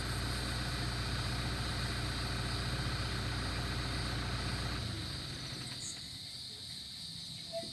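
Backhoe engine idling steadily, then shut off a little past halfway, leaving the steady high buzz of insects.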